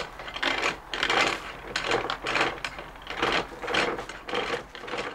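Anchor chain rattling and clanking as it is hauled up out of the chain locker hand over hand, in quick surges two or three times a second.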